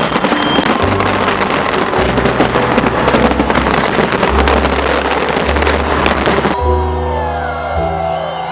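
Fireworks bursting and crackling in rapid succession over music with a pulsing bass line. The fireworks cut off abruptly about two-thirds of the way in, leaving only the music.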